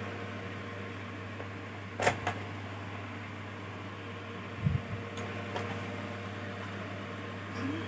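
Small hand-tool work on a laptop's plastic bottom case: two sharp clicks about two seconds in, then a low knock and a few faint ticks as the case screws are put back in. A steady low hum runs underneath.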